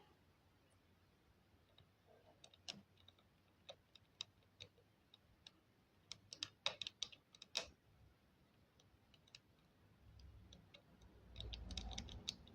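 Near silence with scattered faint clicks and ticks, bunched together about halfway through and again near the end, over a faint low rumble late on.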